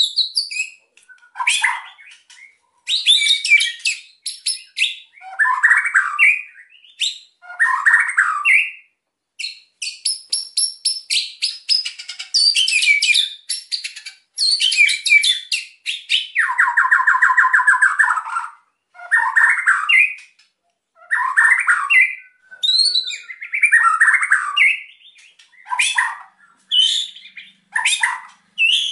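White-rumped shama (murai batu) singing hard in short, varied bursts: whistled phrases mixed with fast clicking runs and harsh stuttering rattles (kretekan), with brief pauses between bursts.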